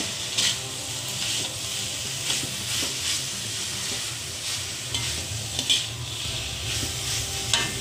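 Shredded cabbage, carrot and beans sizzling in oil and chilli paste in a metal wok while a steel spatula stirs them, scraping across the pan in repeated strokes.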